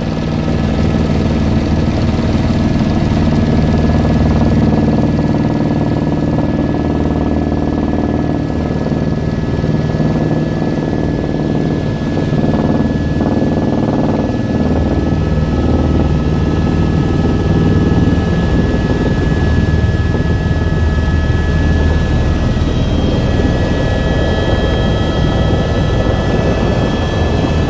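Helicopter in flight: the turbine engine and rotors running steadily, a deep hum under a steady high whine.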